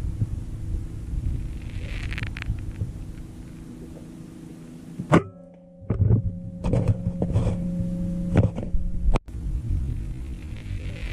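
Air rifle fired once: a single sharp crack about five seconds in, followed by a few softer knocks over the next few seconds, over a steady low hum.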